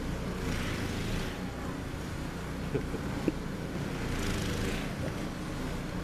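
A steady low engine drone with a few brief hissing rushes over it and two small clicks about three seconds in.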